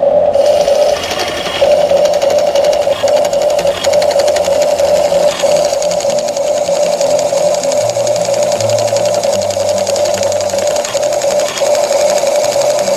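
Huina RC toy excavator's rock-breaker hammer attachment running against gravel: a loud, steady electric buzz with a fast rattle, dropping out for a moment now and then.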